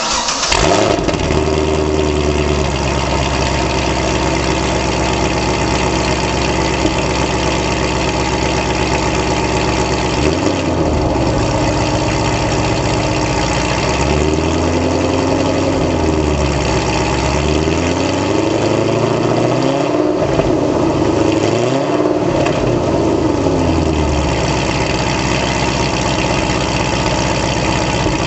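Pontiac GTO's LS2 V8 heard at the tailpipes through Kooks long-tube headers, catted mid-pipes and a Corsa Sport cat-back exhaust, just fired on a cold start: it flares and settles into a fast cold idle. About ten seconds in the revs rise briefly, and later there is a series of throttle blips, with the revs rising and falling about five times before it settles back to idle.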